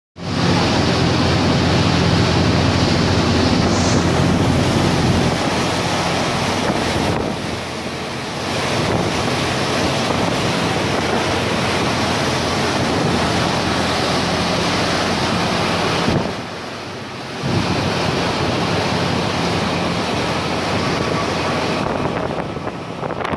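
Wind buffeting the microphone over the rush of the wake and the steady low hum of the cruise boat's engine. The wind noise eases briefly twice, about a third of the way in and again about three-quarters through.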